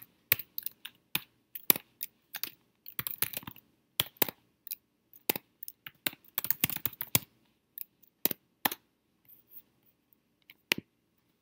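Typing on a computer keyboard: irregular bursts of keystrokes that thin out toward the end, followed by one sharper click near the end.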